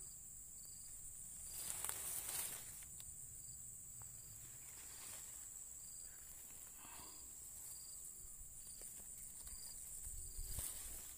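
Steady high-pitched insect buzz, with short high chirps repeating irregularly. A brief rustle comes about two seconds in and another near the end.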